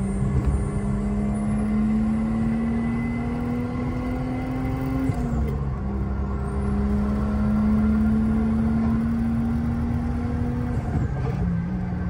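Toyota Chaser Tourer V's turbocharged 1JZ inline-six engine pulling under light acceleration, its pitch climbing slowly. It drops sharply twice, about five seconds in and again near the end, as the car shifts up.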